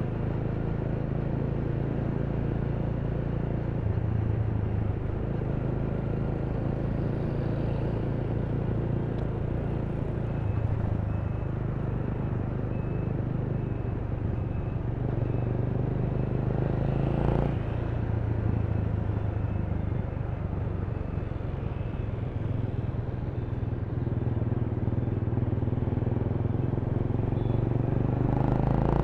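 Honda Rebel 300's single-cylinder engine running while riding in city traffic, its note shifting every few seconds with throttle and speed. A brief louder noise about 17 seconds in.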